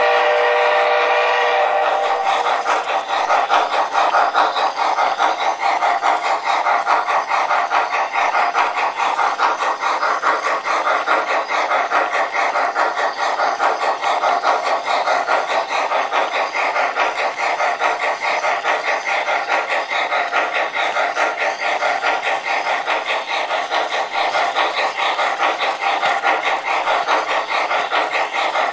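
MTH O-gauge Climax logging locomotive's onboard sound system: a steam whistle sounds and cuts off about two seconds in, then rapid, even steam chuffing continues as the model runs on the track.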